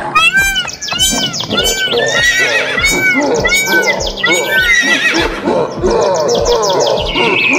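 A horse whinnying: a long string of rising-and-falling neighs over the first three and a half seconds or so. Underneath are background music with a steady beat and fast bird chirps.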